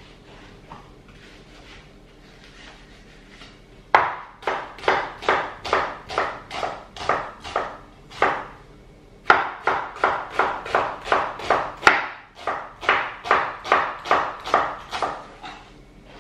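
Kitchen knife chopping an onion finely on a wooden chopping board: quick, even strokes about four a second. The strokes start about four seconds in and run in two stretches with a short pause near the middle.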